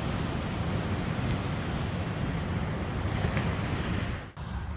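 Wind buffeting the microphone with a low rumble over the steady wash of sea surf. The sound dips sharply for a moment near the end.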